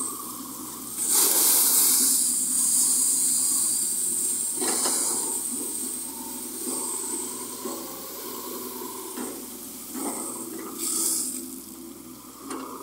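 Water poured from a Volvo wheeled excavator's bucket splashing over its wheels and body, a loud rushing gush that starts about a second in and eases off after a few seconds, followed by shorter splashes near the end. The excavator's engine runs steadily underneath.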